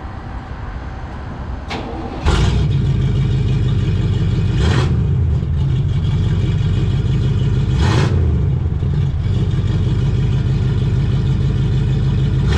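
Oldsmobile 350 V8 in a 1972 Cutlass Supreme being started: it catches with a sudden jump in loudness about two seconds in, then runs steadily, with a few short sharp bursts over the idle.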